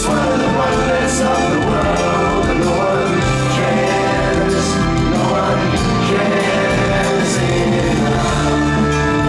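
Live progressive rock band playing, with voices singing over the music.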